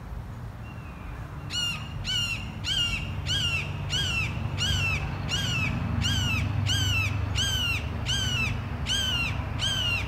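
A hawk calling in a long, even series of loud, down-slurred screams, about one and a half a second, starting about a second and a half in. A steady low rumble runs underneath.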